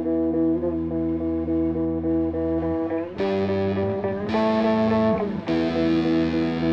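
Background music led by a guitar, playing a repeated figure whose chord changes a few times in the second half.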